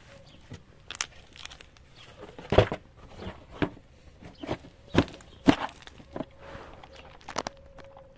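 Cardboard jigsaw puzzle boxes and loose pieces being handled: rustling and a string of sharp knocks and taps, the loudest about two and a half seconds in and twice around five seconds in.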